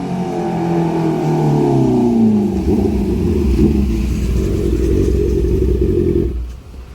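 Motorcycle exhaust with its pitch falling over the first couple of seconds, then a deep low rumble that stops abruptly about six seconds in.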